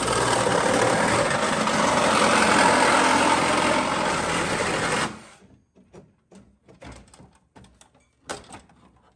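Reciprocating saw cutting through a steel frame rail, stopping abruptly about five seconds in; a few light knocks and clatters follow.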